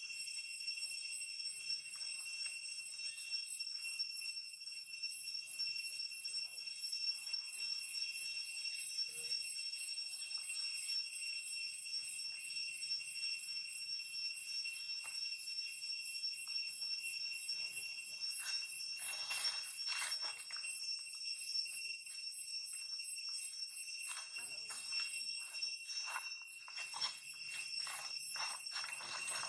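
Soft clicking and smacking from an infant long-tailed macaque suckling at its mother's nipple, heavier in a cluster around twenty seconds in and again over the last few seconds, over a steady high-pitched pulsing drone.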